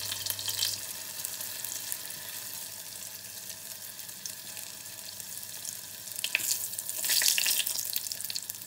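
Tofu cubes frying in hot oil in a small saucepan, a steady sizzle and crackle, with a louder burst of crackling about seven seconds in.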